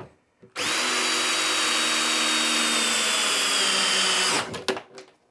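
A brushed DeWalt 20V MAX cordless drill/driver (DCD771) runs at steady speed for about four seconds with a high motor whine that sags a little near the end, then stops, followed by a few sharp clicks.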